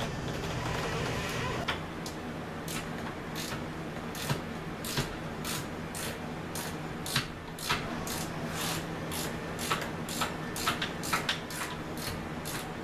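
Scattered sharp metal clicks and clinks, one or two a second at uneven spacing, as a bolt and nut are worked into a car's lower control arm bushing. A low steady hum runs underneath.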